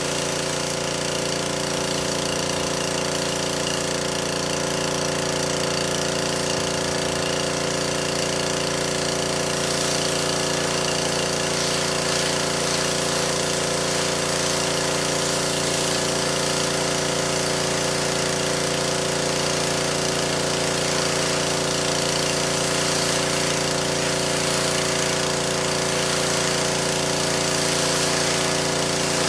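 Pressure washer running steadily, its motor tone constant under a high hiss of water spray.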